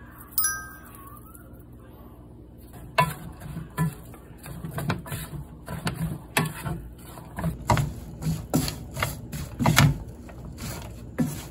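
A single bright chime-like ding, then a run of irregular clinks and light knocks, over quiet background music.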